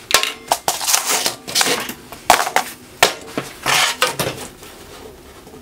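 Hand tools and an electrical cable being handled and set down on a steel-topped workbench: a run of irregular clicks, knocks and scrapes that thins out near the end.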